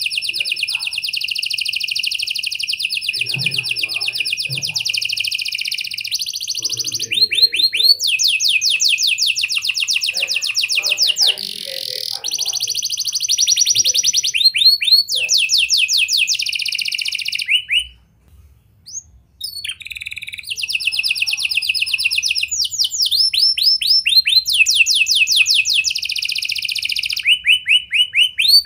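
Domestic canary singing a long, almost unbroken song of high, rapid rolling trills, with a brief break about two-thirds of the way through.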